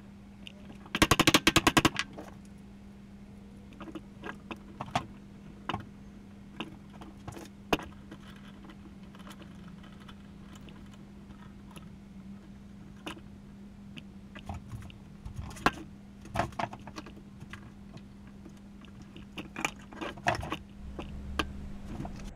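Workshop handling noises over a steady low hum: a fast rattling burst of sharp clicks about a second in, then scattered knocks and clicks.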